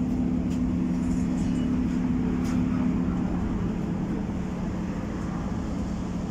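Tatra T4R tram running, heard from inside the passenger saloon: a steady low rumble with a hum, one of whose tones fades about three seconds in as the sound eases slightly.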